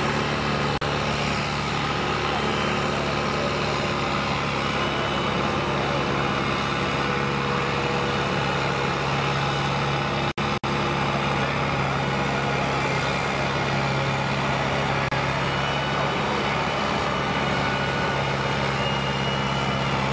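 Valmet farm tractor's diesel engine running steadily at low speed, with no revving. The sound drops out for an instant twice, a little after the halfway point.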